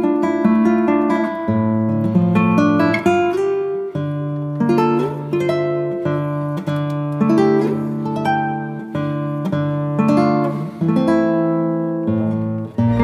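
Background music of plucked string notes played one after another as a melody.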